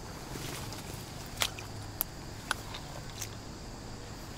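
Footsteps through dense brush, with about four sharp snaps of cracking twigs spread over a couple of seconds, over a low steady hum.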